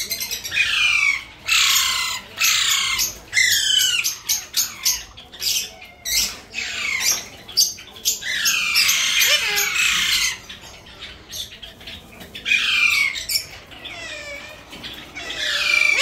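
Alexandrine parakeets giving harsh, loud squawks that fall in pitch, one after another in quick series. The calls ease off for a couple of seconds about two-thirds of the way through, then return in short clusters.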